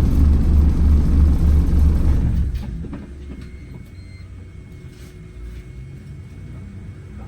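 Wright Gemini 2 hybrid double-decker bus's diesel engine running with a loud, evenly pulsing low rumble heard from inside the bus, then cutting out about two and a half seconds in, leaving a much quieter low hum with a few light clicks.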